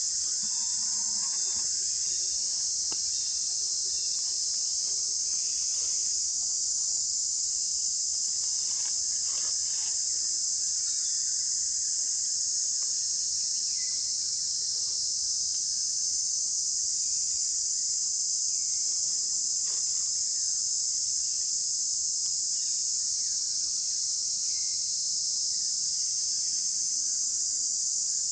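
A dense chorus of insects buzzing in one unbroken, high-pitched drone at a steady level.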